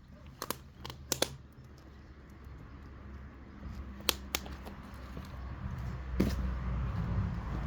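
Small campfire crackling, with a few sharp pops and snaps, over a low rumble that grows louder in the second half.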